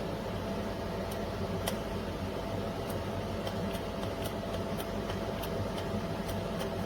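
DR MILLS DM-7441W electric blade grinder running steadily with a steady hum and whir, and scattered sharp clicks throughout.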